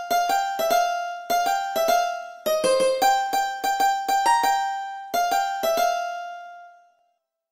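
Melody in a sitar sound, played one plucked note at a time, a few notes a second, each note starting sharply and ringing down. The last note is held and fades out near the end.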